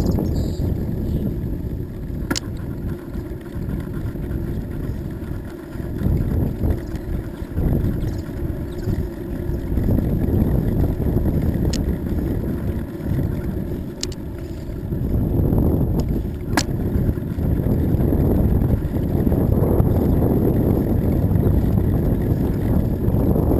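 Wind noise on the microphone of a camera riding on a moving bicycle, with tyre noise on the asphalt trail, rising and falling as the pace changes. A few sharp clicks from the bike cut through it.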